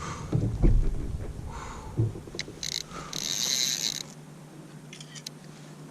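Fishing reel ratcheting in short bursts, the longest lasting about a second, while a big halibut is fought on the line. Dull knocks sound in the first second and again at about two seconds.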